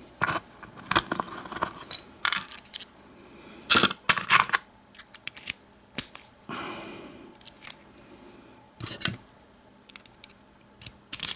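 Sharp clicks and light metallic rattles of small padlock parts being handled as the lock core is taken apart, coming in irregular clusters with short scrapes between them.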